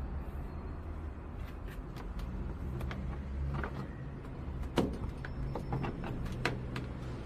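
Scattered clicks and knocks over a steady low hum, the loudest knock a little under five seconds in and another sharp one near six and a half seconds.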